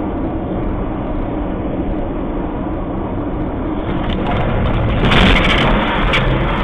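Steady road and engine rumble from a car's dashcam, swelling about four seconds in, with a loud crackling crash about five seconds in as poles and wires come down across the road ahead, then scattered snapping clicks near the end.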